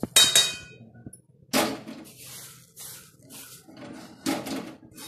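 A steel spoon scraping dry-roasted cumin and shahjeera seeds out of a steel kadhai and tapping it clean against the pan and bowl: a ringing clink near the start, then several short scraping strokes with the seeds rattling.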